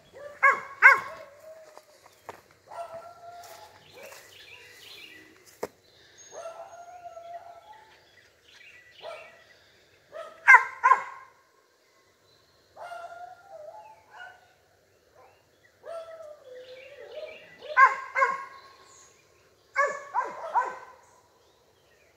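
A cur dog barking up at a squirrel it has spotted in the trees: clusters of sharp, loud barks about half a second in, near the middle and twice near the end, with longer drawn-out howling barks between them.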